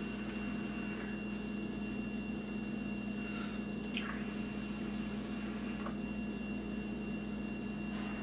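Sub-ohm rebuildable dripping atomizer fired through a long draw and exhale: a faint hiss with a few soft pops of e-liquid on the hot 0.8 ohm coil, under a steady electrical hum.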